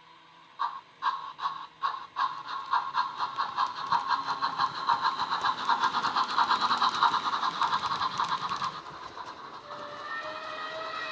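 Steam exhaust chuffs from the LokSound 5 sound decoder and small flat speaker in a Hornby Merchant Navy model locomotive, heard as it pulls away. The chuffs start slowly about half a second in, quicken and grow louder, then stop around nine seconds in. A steady whistle tone sounds near the end.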